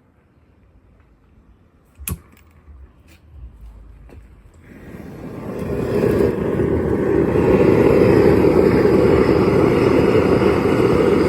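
A sharp click about two seconds in, then the propane burner of a plaster-and-sand blast furnace is relit: its rushing noise builds over about two seconds and then runs loud and steady.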